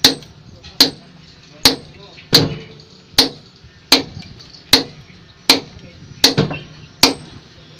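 Sledgehammers striking a 35 cm precast concrete pile in turn, about ten sharp, ringing blows roughly every 0.8 s, breaking the concrete away in the pile-cutting process.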